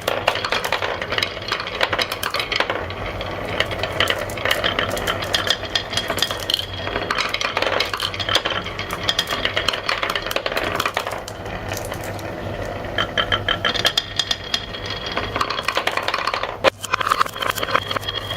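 Many marbles rolling and clacking along marble-run tracks: a dense, continuous rattle of small clicks, with a brief lull near the end.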